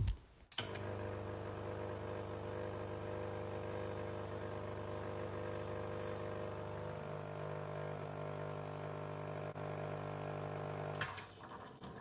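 Rancilio Silvia Pro espresso machine's pump humming steadily as it pushes hot water and cleaning solution against a blind filter in a backflush. The pitch shifts about seven seconds in. The pump cuts off about eleven seconds in, followed by a brief release of water into the drip tray.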